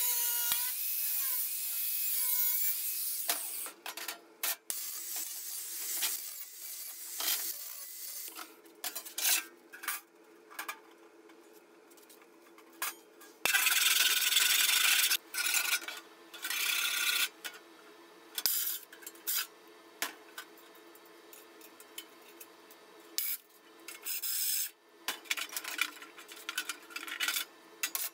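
Angle grinder cutting thin stainless steel sheet for the first three seconds, then intermittent clatter and scraping of steel parts being handled over a steady low hum. About halfway through come two short, loud bursts of stick welding as the stove box is tacked together.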